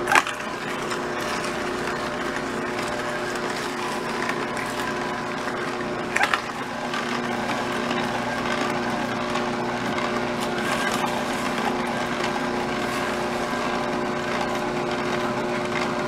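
A vertical slow juicer's motor runs with a steady hum while it presses fruit and vegetables. A couple of short knocks come just after the start and again about six seconds in.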